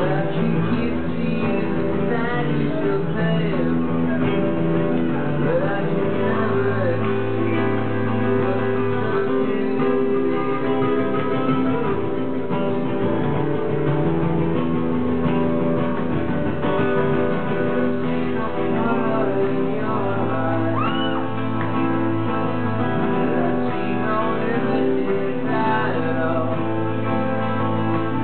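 Live acoustic set: an acoustic guitar strummed steadily with a second guitar, and a man singing into a microphone, heard in a room.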